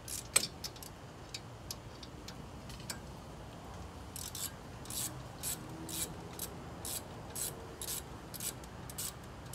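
Socket ratchet rasping on its back-swings as a front brake caliper bolt is unscrewed: a sharp click about half a second in, scattered strokes, then a steady run of about two strokes a second from about four seconds in.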